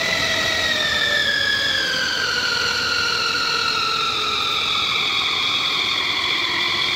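Electric pounded-yam maker running, its motor pounding boiled yam into dough. The steady high whine slowly drops in pitch.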